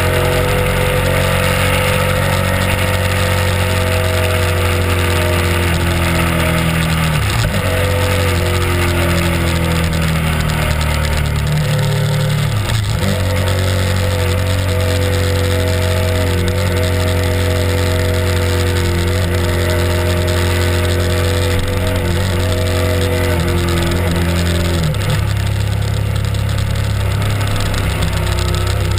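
Honda RC51's 90-degree V-twin engine running at steady cruising revs on the road, heard over wind rush on the microphone. The engine note breaks briefly three times, around 7, 12 and 25 seconds in, then settles back to a steady pitch.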